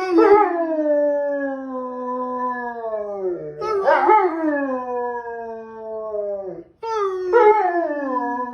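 A dog howling: three long howls in a row, each rising at the start and then sliding slowly down in pitch.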